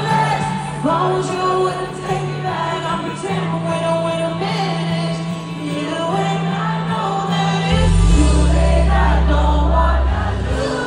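Female vocalist singing a slow pop ballad live with band accompaniment over a concert PA. A deep bass note comes in about eight seconds in.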